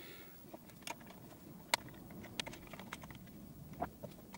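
Scattered light clicks and taps of a small plastic project box and its wires being handled on a wooden workbench, the sharpest click a little under two seconds in.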